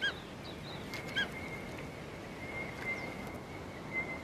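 A bird gives two short arched calls about a second apart, with fainter chirps, over a steady outdoor hiss. A thin steady high tone comes in about a second in and holds.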